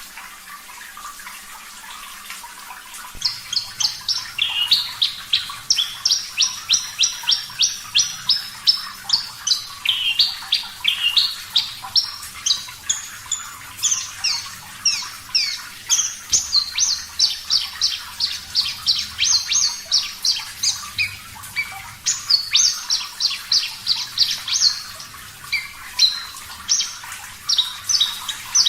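A Javan bush lark (branjangan, parva form) sings a long, fast run of sharp, high chirping notes, about two loud phrases a second, starting about three seconds in. Steady running water hisses underneath throughout.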